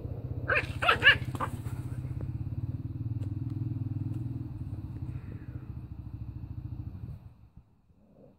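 A Jack Russell terrier puppy gives about four quick high-pitched yaps, over a steady low growl that runs on until it stops about seven seconds in.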